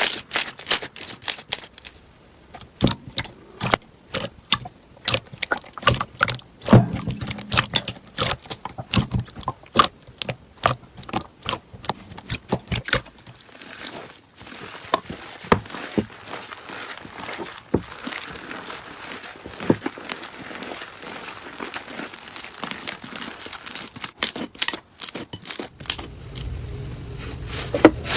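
Slime being squeezed and poked by hand, giving a run of irregular sharp pops and clicks that give way to a denser, softer crackle about halfway through.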